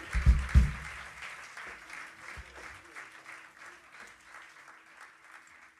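Audience applause heard through the stage microphones on the mixing-desk feed, fading away gradually. Two low thumps come in the first second.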